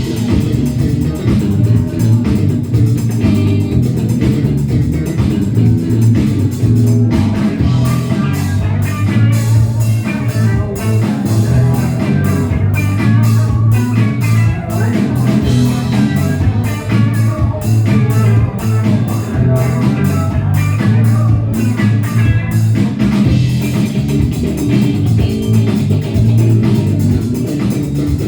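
A rock band playing live: guitar, bass guitar and a drum kit.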